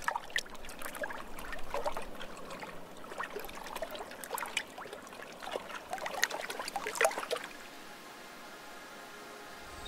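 Water trickling, with many small irregular drips and splashes. About seven seconds in it settles to a soft even hiss, and faint held tones begin underneath.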